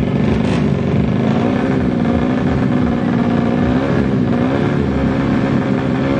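A tuned 130cc Honda Kharisma drag bike's four-stroke single-cylinder engine runs at high revs while the bike stands still. Its pitch wavers up and down as the throttle is worked, with a short dip and climb back about four seconds in.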